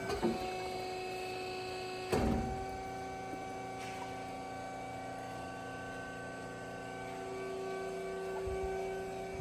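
Steady electric machine hum made of several steady tones, with one sharp knock about two seconds in.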